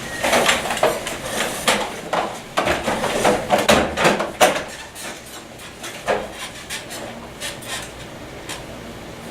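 Stage scene-change clatter: furniture and props being shifted on a stage floor, giving a busy run of irregular knocks, clunks and scrapes over the first four and a half seconds, then a few scattered knocks.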